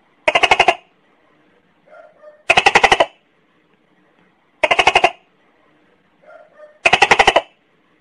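Gecko chirping: four bursts of rapid chik-chik-chik calls, each about half a second long and made of six to eight quick clicks, spaced about two seconds apart, with fainter short calls between them.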